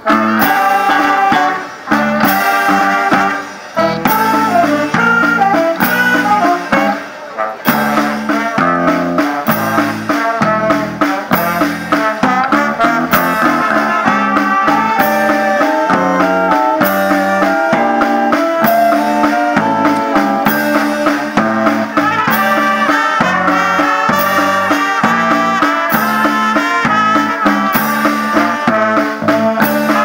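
Brass band of saxophones, trumpets and trombones playing a lively tune over a drum beat. The music stops briefly a few times in the first several seconds, then runs on without a break.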